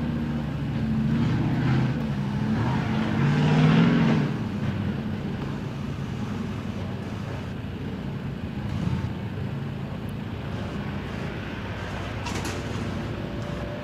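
Off-road competition truck engine revving, its pitch rising and falling over the first four seconds, loudest near four seconds in, then settling into a steady low running rumble.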